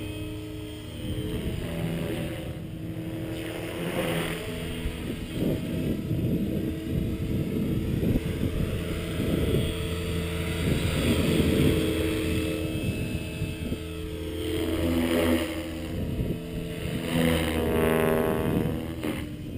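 T-Rex 550E electric RC helicopter in flight: a steady motor and gear whine under the whoosh of the rotor blades, swelling and fading as it manoeuvres. A pitch sweep rises and falls near the end as it passes.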